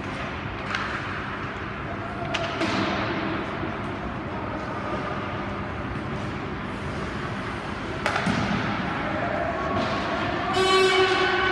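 Ice rink ambience: a steady murmur of voices with scattered knocks. About ten and a half seconds in, a horn-like blast with many overtones sounds for about a second.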